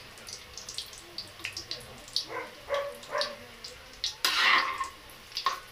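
Hot cooking oil crackling in a wok, with scattered pops and utensil clicks. About four seconds in comes a loud, brief sizzling hiss as food drops into the oil.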